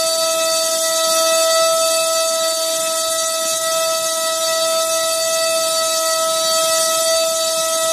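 Cobra 2208 2000kv brushless motor spinning an HQ 6x4.5 prop at sustained high throttle on a thrust stand: a loud, steady whine that holds one pitch. It draws about 21 amps on 4S through a 12 A ESC, nearly double the ESC's rating.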